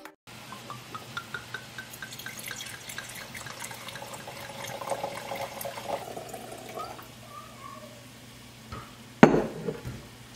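Red wine poured from a bottle into a wine glass: a run of quick glugs that rise in pitch as the glass fills. Near the end the bottle is set down on the granite counter with one sharp knock.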